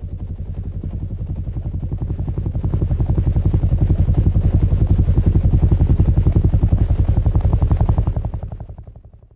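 Helicopter rotor chopping, a rapid even thudding of about ten beats a second. It grows louder over the first few seconds, holds, then fades away near the end, like a flyby.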